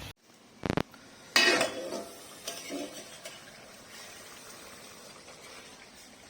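A metal utensil knocking and clinking against a cooking pan: a short knock, then a sharp ringing clink about a second and a half in, then a few lighter knocks. Under it is a faint steady sizzle.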